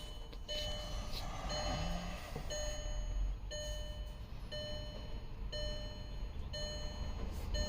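Car's dashboard warning chime beeping steadily, a short pitched tone about once a second, with the ignition switched on.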